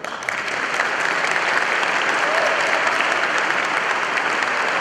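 An audience applauding steadily, dense clapping that starts abruptly and holds at an even level.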